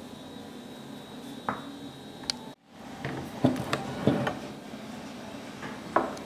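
Scattered light knocks and clicks of eggplant pieces and a knife being handled on a cutting board, over a steady background hum. The sound cuts out for a moment about halfway, and the knocks come thickest just after.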